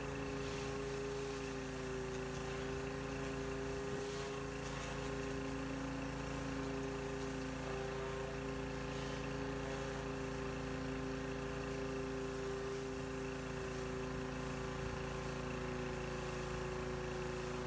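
Pressure washer running steadily under load, its motor drone wavering slightly in pitch, with the hiss of water jets from a spinning rotary surface cleaner on concrete.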